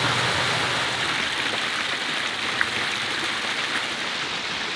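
Shallow rocky mountain stream flowing: a steady rush of water, with one short tick a little past the middle.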